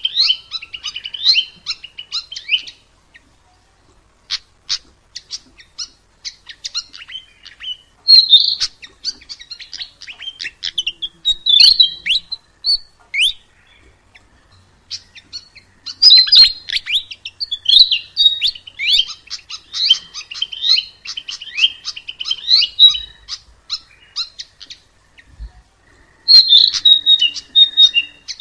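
Sikatan emas, a Ficedula flycatcher, singing in bursts of fast, high chattering and trilling phrases, with short pauses between the bursts.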